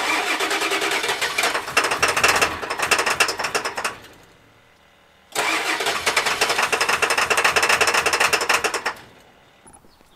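Ford F-550's 7.3 Powerstroke V8 turbodiesel cranking on its starter in two tries of about four seconds each with a short pause between, failing to fire both times. It is a cold start on worn-out glow plugs, with the block heater plugged in for only 45 minutes.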